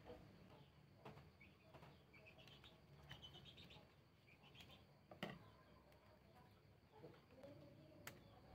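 Near silence, with faint bird chirps in the background and a few soft clicks as scissors and the bow are handled. The loudest click comes about five seconds in.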